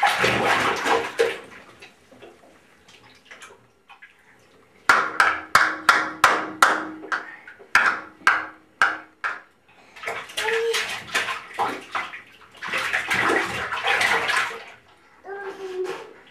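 Bath water splashing in bursts, with a quick run of about two sharp splashes a second in the middle.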